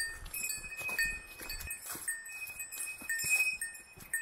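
A small bell, a hiker's bear bell, jingling again and again in time with walking, over footsteps on a dry leaf-covered trail.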